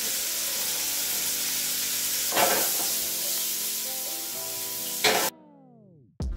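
Hot oil sizzling steadily as tempura-battered eggs deep-fry in a saucepan and kimchi fries in a skillet, swelling louder about two and a half seconds in and again near five seconds. The sizzle cuts off suddenly, leaving background music that sweeps down in pitch.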